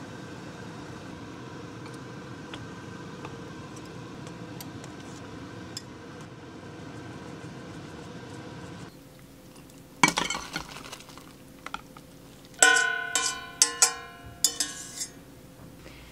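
Instant ramen boiling in a metal pot, a steady bubbling hiss. After about nine seconds it stops; there is a knock, then several ringing metallic clinks of utensils against the pot.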